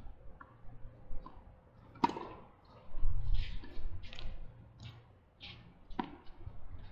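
Tennis rally: a ball struck by a racket with a sharp pop about two seconds in and again about four seconds later, with short scuffing noises between the hits.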